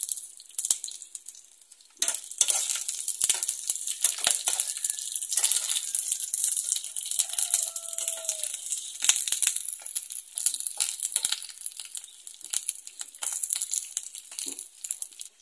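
Oil sizzling and crackling in an enamel frying pan as chiles de árbol, garlic cloves and onion fry, with a metal spoon clinking and scraping against the pan as they are stirred. The sizzle starts suddenly about two seconds in.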